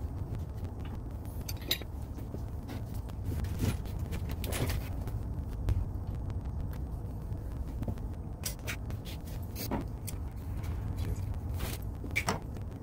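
Scattered small clicks, clinks and scrapes of hands working gas meter pipe fittings, over a steady low rumble.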